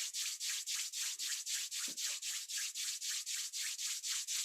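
Palms rubbed briskly back and forth against each other, an even swishing at about five strokes a second.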